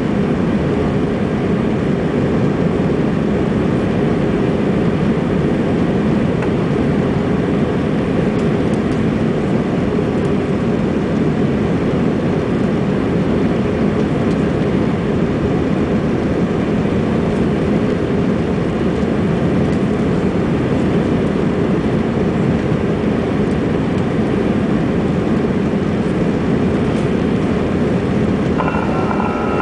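Steady cabin noise inside an Airbus A320 climbing after takeoff: jet engines and rushing air, a deep even noise. Near the end a few brief steady tones sound over it.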